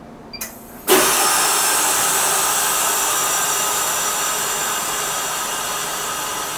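TRIUMF Rabbit Line pneumatic tube firing a capsule with 100 psi of compressed air. A sudden loud rush of air starts about a second in and runs on as a steady hiss that slowly fades. It is surprisingly loud.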